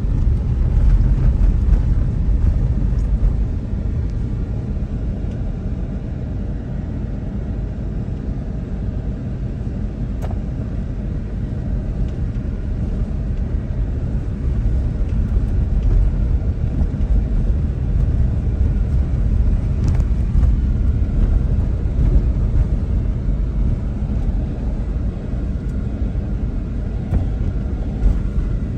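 Car driving along a rough road: a steady low rumble of engine and tyres, with a couple of faint knocks from the bumpy surface.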